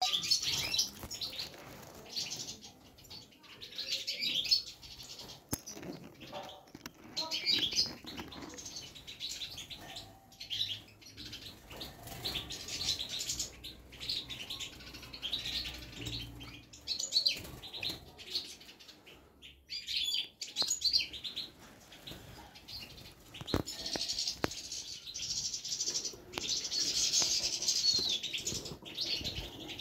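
Goldfinches chirping in repeated bouts of rapid, high-pitched twittering, each lasting a second or two with short pauses between, and a longer run near the end.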